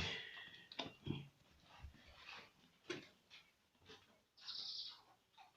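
Pregnant sow eating her feed: quiet, scattered chewing and mouthing noises, with a half-second breathy noise about four and a half seconds in.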